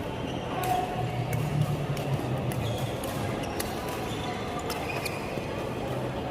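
Badminton rally in a hall: sharp clicks of rackets striking a shuttlecock at uneven intervals, over a steady background with music.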